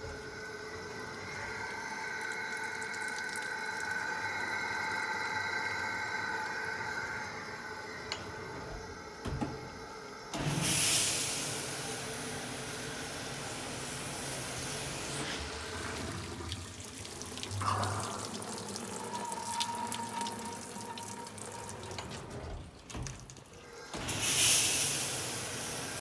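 Hobart AMXXS31 hood-type commercial dishwasher running its wash cycle. It starts with a steady mechanical whine, then about ten seconds in water begins spraying inside the closed hood, suddenly and loudly, and keeps going. Another strong spray surge comes near the end.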